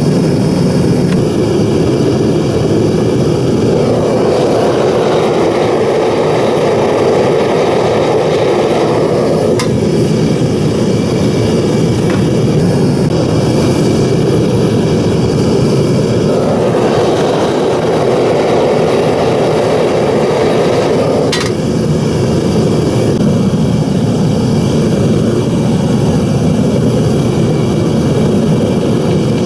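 Devil Forge propane furnace burner running at full blast, a loud steady rush of flame and blower air while melting copper heat sinks in the crucible. Two sharp clicks come through, about ten and twenty-one seconds in.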